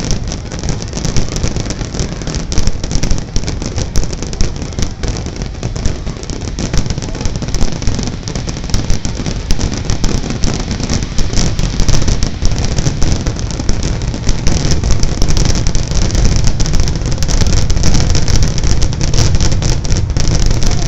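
Fireworks in a dense, continuous barrage: rapid booms and crackling from bursting shells and fountains over a steady low rumble, getting louder in the last several seconds.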